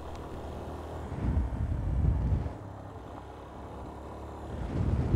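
Yamaha Ténéré 250's single-cylinder engine running as the motorcycle rides along, with wind rumbling on the microphone. The rumble swells twice, about a second in and again near the end.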